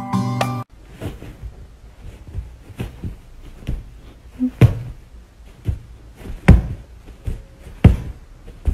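Background music cuts off under a second in. It is followed by irregular soft thumps and knocks, with a few louder ones, as a hand and a dog's paw pat at each other on a blanket-covered crate floor.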